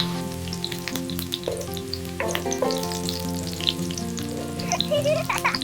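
Food sizzling and crackling in a pan, over background music with long held notes.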